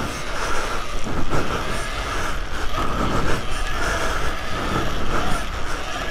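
Electric off-road motorbike's motor whining, the pitch rising and falling as the throttle opens and closes, over the rumble of the tyres on dirt, with a few thuds from the bike over the whoops.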